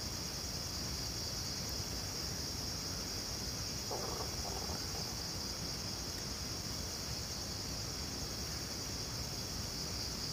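Crickets chirping in a steady, high-pitched chorus under faint background hiss.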